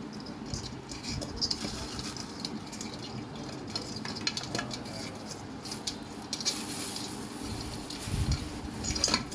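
A crab's legs and claws clicking and tapping irregularly on a hard surface as it walks, with a sharper cluster of clicks near the end.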